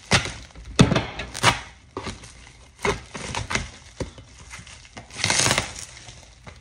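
Knife slicing through packing tape and cardboard on a shipping box: irregular scrapes and knocks, with a longer rasping cut about five seconds in.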